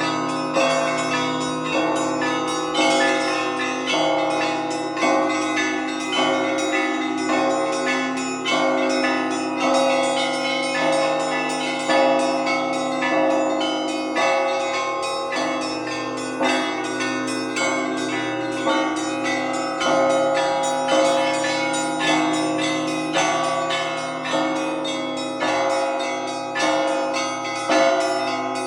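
Russian Orthodox church bells rung by a bell ringer: a dense, continuous peal of many bells struck in a rhythmic pattern, with a heavier accented stroke about every two seconds and the tones ringing on over each other.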